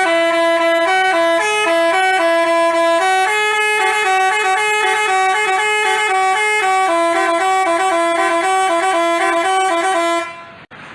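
Telolet musical bus horn (Basuri type) playing a quick tune of short stepping notes, cutting off about ten seconds in.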